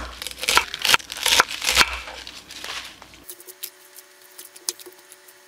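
Kitchen knife chopping through spinach stems onto a wooden cutting board: a quick run of sharp knocks for about three seconds. After that there are only faint light clicks over a low steady hum.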